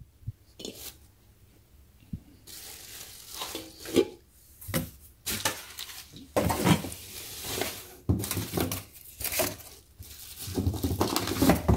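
Cardboard packaging and plastic wrap rustling and crinkling in irregular bursts as hands rummage through a cookware box, with a few sharp knocks of stainless pots and glass lids. The rustling starts about two seconds in.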